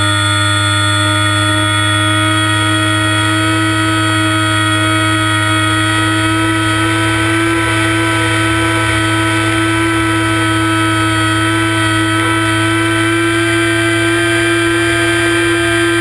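Onboard recording of a ParkZone Icon A5 RC plane's electric motor and propeller running at a steady whine, its pitch creeping slightly higher through the flight, with a low rumble of wind on the microphone underneath.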